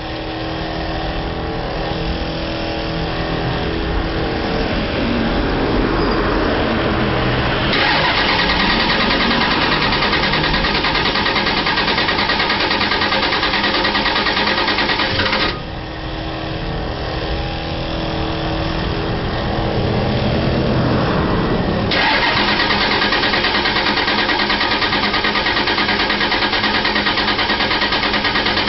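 An engine is cranked over and over in the cold without catching, a steady mechanical whir that does not settle into running: it won't fire on its own at 38°F. The sound dips twice, near the start and about halfway through, and each time builds back over several seconds to a long, steady, brighter whir.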